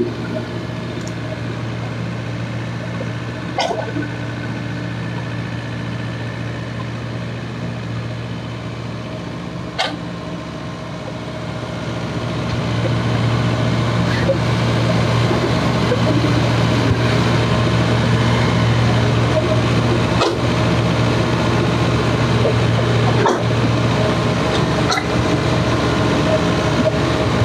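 Heavy diesel engine running steadily with a deep hum, which grows louder about twelve seconds in, as under working load. Two sharp knocks come in the first ten seconds.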